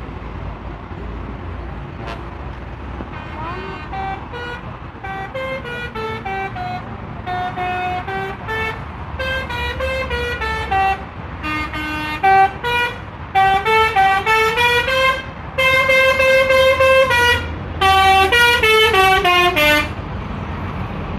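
Telolet horn of a Mustika Holiday bus playing quick melodic runs of short, changing notes, starting faint and growing louder. Near the end it holds long notes before a last fast run, over the low rumble of the engine and traffic.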